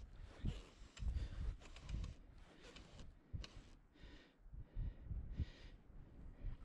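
Wind buffeting the microphone in uneven gusts on an open loch shore, with clicks and short hissing rasps of fly line being stripped back through the rod rings.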